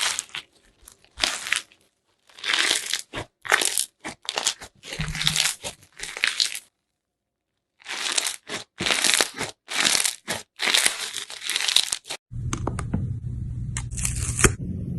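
Slime being squeezed, stretched and pulled apart by hand, giving short bursts of crackly, tearing noise with brief pauses, and about a second of silence midway. About twelve seconds in the bursts give way to a steady low hum with a few faint clicks.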